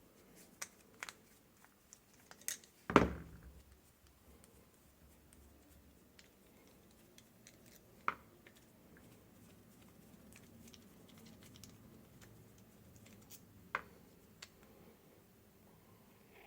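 Scattered small clicks and taps of tools and small parts being handled as a string trimmer's carburettor is taken apart, with one louder knock about three seconds in.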